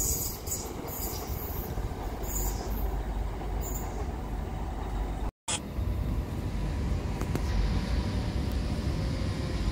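Electric passenger train running along the track as it pulls away, a steady low rumble. After a sudden break about halfway, the rumble of a second electric train approaching from a distance.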